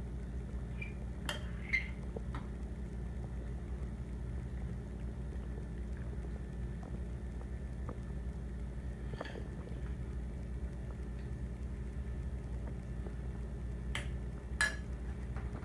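A few sharp clinks of a spoon and a ceramic bowl on a metal high-chair tray, with a louder ringing pair about a second and a half in and again near the end, over a steady low hum.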